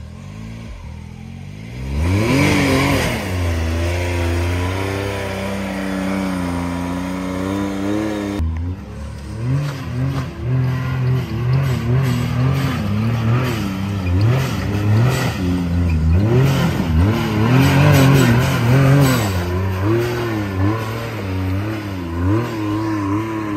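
Can-Am side-by-side engines revving hard on rock-ledge climbs. About two seconds in one engine revs up sharply and holds high revs for several seconds. It then cuts off abruptly and is followed by a side-by-side engine revving up and down repeatedly under throttle.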